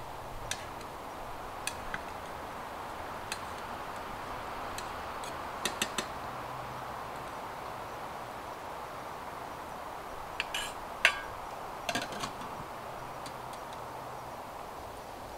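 Steady rushing of river water, with scattered sharp clicks and light knocks: a few single clicks early, a quick cluster about six seconds in, and another group between ten and twelve seconds.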